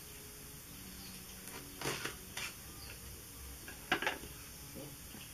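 Pocket knife clicking and scraping on a thin aluminium beer can as its top is cut away, with a few short metallic knocks as the can is handled; the loudest comes about four seconds in.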